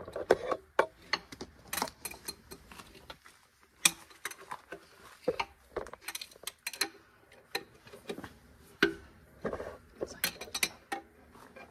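A wrench working the hub bolts on a Farmall Super M-TA's rear wheel, making irregular sharp metallic clicks and clinks, as the bolts are loosened so the wheel can slide in on the axle.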